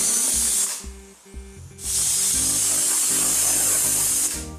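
Prestige Popular aluminium pressure cooker whistling: two loud blasts of steam hissing out under the weight valve, the first ending about a second in and the second lasting about two and a half seconds. These are the two whistles that mark the cooking as done.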